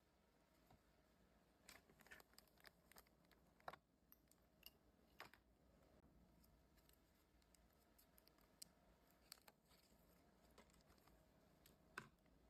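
Faint, scattered clicks and light scraping from trading cards being handled and sorted by hand, over near-silent room tone.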